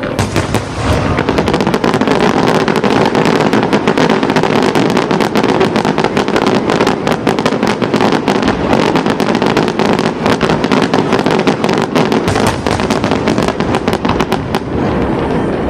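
Fireworks display going off in rapid, continuous succession: a dense barrage of cracks and bangs that builds in the first second and eases slightly near the end.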